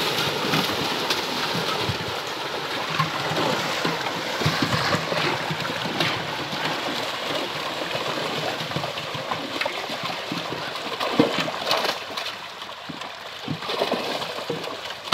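Fish thrashing in a hauled-in net, making a dense, continuous splashing of water broken by sharp slaps. The splashing eases somewhat near the end.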